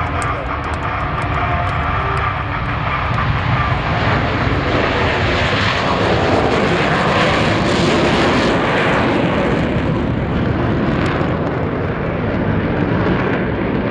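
Blue Angels F/A-18 Hornet jets passing: a loud jet-engine roar swells, peaks about halfway through and then fades as the formation goes by.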